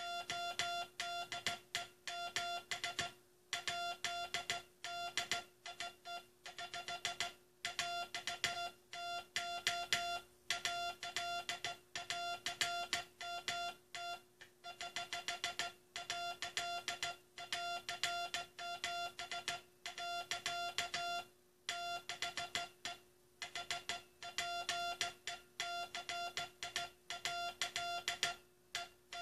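Morse code sent by hand as a CW sidetone: one steady beeping tone keyed on and off in quick dots and dashes, with short pauses between words, over a faint steady hum. It spells out the last Morse message sent by the U.S. Coast Guard.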